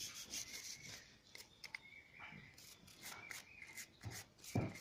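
A small brush scrubbing a carburettor throttle slide and its needle: a run of short, faint, scratchy bristle strokes.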